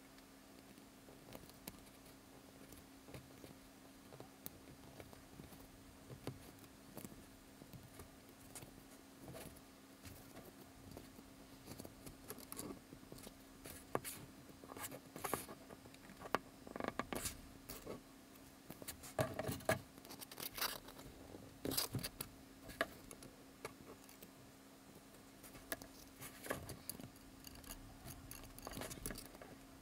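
Small clicks and scrapes of thin wire being pushed through and bent at the end of a wine cork, sparse at first and busier from the middle on. A faint steady hum sits underneath.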